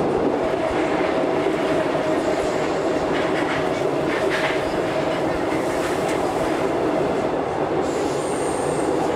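Paris Métro train running, heard from inside the carriage: a loud, steady rumble and rattle with a steady whine held throughout.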